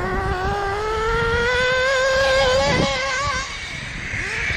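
Small nitro RC car engine revving at high speed, its high-pitched whine climbing steadily for about three seconds, wavering, then dropping away. Low wind rumble on the microphone underneath.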